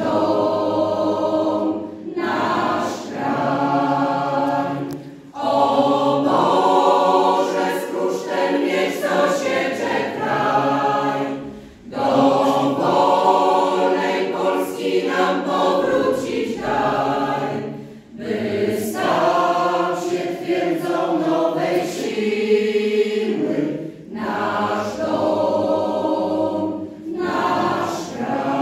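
Mixed choir of women and men singing together, in phrases of a few seconds with short breaks between them.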